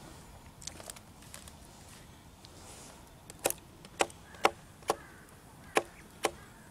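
Dry wood cracking and snapping in short, sharp cracks: a couple of faint ones early, then a quicker run of louder cracks from about three and a half seconds in.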